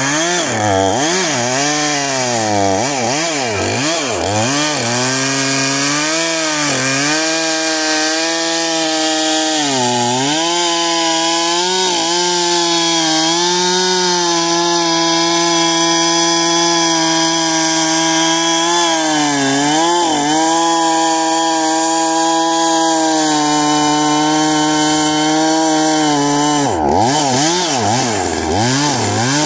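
Gas-powered Husqvarna chainsaw cutting into oak, its two-stroke engine held at high revs. The pitch sags and recovers as the chain is loaded in the cut: several quick swings in the first few seconds, again about a third and two-thirds of the way through and near the end, with steady full revs in between.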